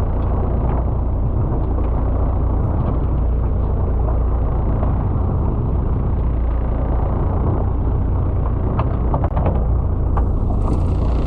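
Fishing boat's engine running steadily, its sound heavy in the deep lows. A short hiss comes in near the end.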